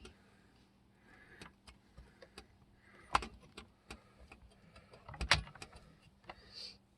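Small metal clicks, taps and scrapes of a chainsaw's bar nuts being tightened by hand with a wrench, with two louder knocks about three and five seconds in.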